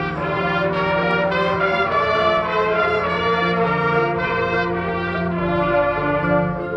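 Marching band playing, with the brass section (trumpets, trombones, horns) carrying loud, sustained chords that shift from note to note.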